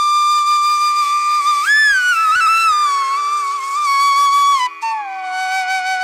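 Background music: a slow solo flute melody, a long held note bending up and down in pitch, then dropping to a lower phrase near the end, over a faint steady low tone.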